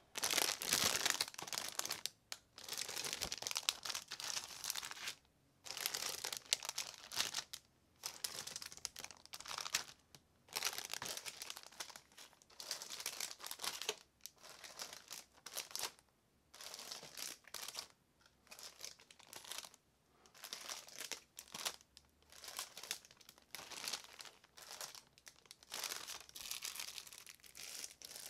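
Clear plastic bags wrapped around plastic model-kit parts sprues crinkling as they are handled. The crinkling comes in repeated bursts a second or two long, with short pauses between them.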